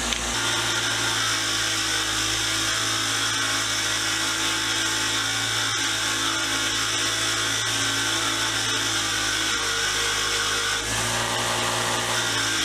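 Motor-driven wire wheel running steadily, brushing the metal of an old screwdriver to a brushed finish; its tone shifts slightly near the end.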